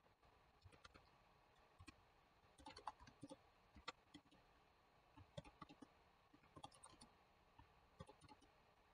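Faint computer keyboard typing: short key clicks in irregular clusters.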